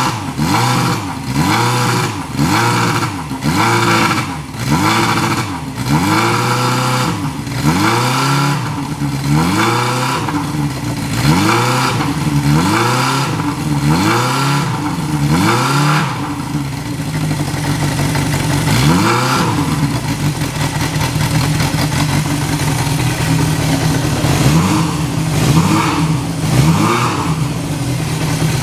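1975 Honda CB750's air-cooled inline-four engine, heard close to its exhaust muffler, being blipped on the throttle about once a second, each rev rising and falling back. About halfway through it settles into a steady idle, with a few more single blips near the end.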